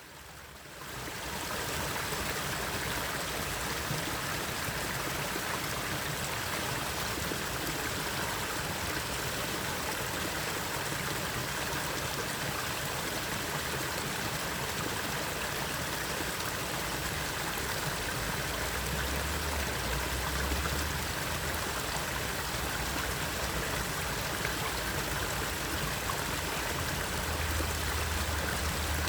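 Steady rush of running water from a stream, fading in over the first second. A low rumble joins briefly about two-thirds of the way through and again near the end.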